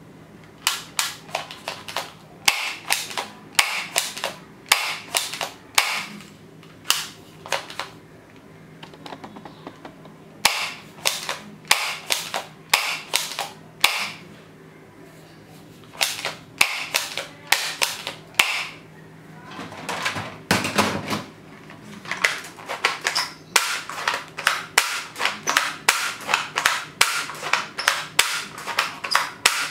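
Plastic toy guns being fired: a long series of sharp cracking shots, some single and some in quick runs, with a couple of short pauses and a brief rustle of plastic toys being handled near the middle.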